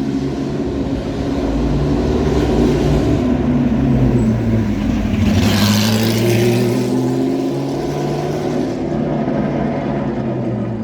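Several sports cars driving past in a convoy at low speed, their engines running and revving up and down; the loudest car goes by close about five to seven seconds in.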